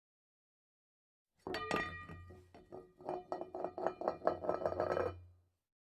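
A quick, uneven run of clinking taps with ringing tones over a low steady hum, starting suddenly about a second and a half in and cutting off just before the end.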